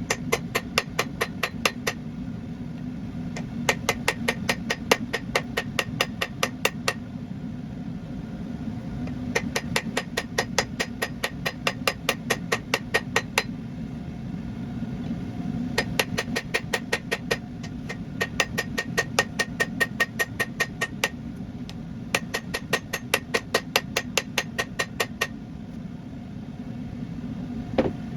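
Hand hammer striking hot Damascus steel on an anvil in ringing blows, about five a second, in five runs of several seconds with short pauses between them, over a steady low roar.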